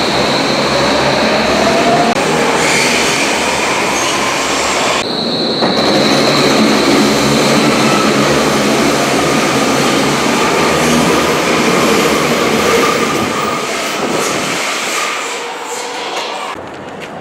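Hamburg U-Bahn type DT5 train pulling away in an underground station. Its IGBT inverter-fed traction motors whine in tones that rise as it gathers speed, over wheel and rail noise. The sound fades near the end as the train leaves.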